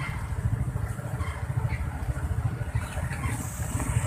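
Motorcycle engines idling close by with a steady low rumble.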